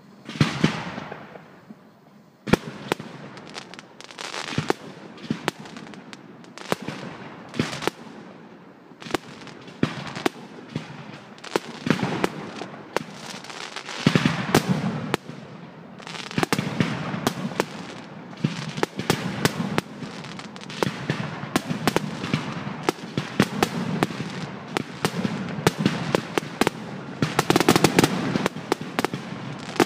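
Fireworks display: aerial shells bursting one after another with sharp bangs and crackling. The bursts are spaced out at first, then come much thicker from about halfway, busiest near the end.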